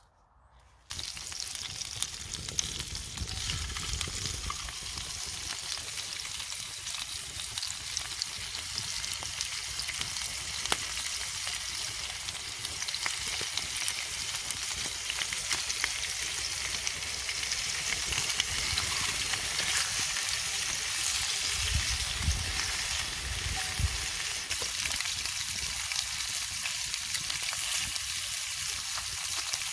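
Bacon and eggs sizzling and crackling in a Petromax skillet, starting suddenly about a second in as the food goes into the hot pan and then frying steadily.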